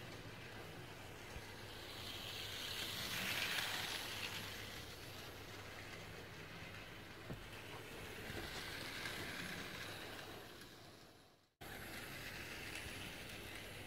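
Toy train running around its circular track, a steady whirring and rumble of its motor and wheels that grows louder twice as it passes close by. The sound drops out for an instant about eleven seconds in, then carries on.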